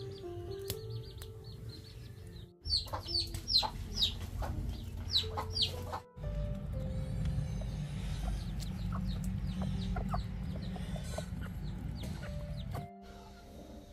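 Chickens clucking and calling over soft background music, with scattered crackling clicks. A steady low rumble sets in about halfway through and stops just before the end.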